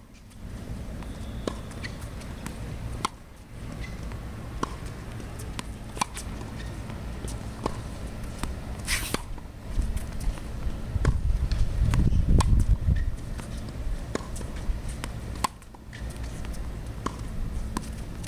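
Tennis ball struck by a racket and bouncing on a hard court in a practice rally: sharp pops about every second or so. A low rumble swells for a few seconds in the middle.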